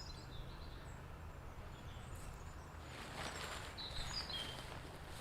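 Outdoor ambience: a steady low rumble with a few short bird chirps, and a rustling that sets in about three seconds in.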